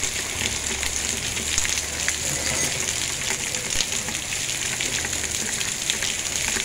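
Heavy rain mixed with the last of a hailstorm falling, a steady hiss with many small ticks of drops and pellets striking.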